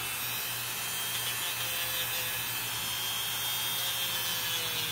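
Handheld rotary tool with a small sanding bit grinding down a fungus-damaged toenail: a steady motor whine over a rasping hiss, the pitch dipping slightly near the end as the bit is pressed to the nail.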